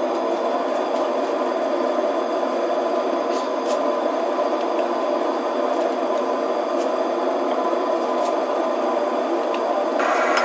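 Homemade two-burner gas forge running with a steady rushing burner noise, with a few faint clicks of metal.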